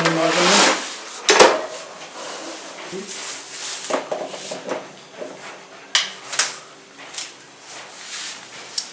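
Hard plastic vacuum cleaner parts being handled: scattered sharp clicks and knocks, about a second or two apart, over faint rustling.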